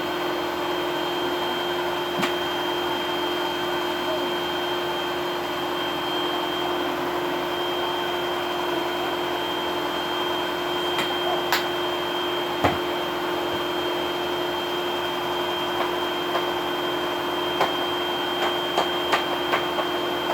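Household vacuum cleaner running steadily, its motor giving an even rushing noise with a constant high whine. A few sharp clicks or knocks come through now and then, most of them in the second half.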